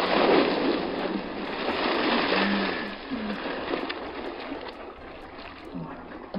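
A child plunging headfirst into an inflatable paddling pool, with a sudden loud splash, then water sloshing and churning as the child thrashes about in it.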